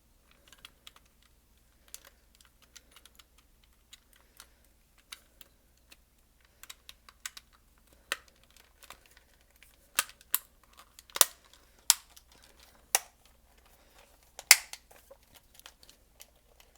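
Small plastic clicks and taps from a PS4 DualShock 4 controller's L2 trigger and its return spring being pressed into the controller shell, irregular and sparse at first, with a handful of louder, sharper clicks in the second half.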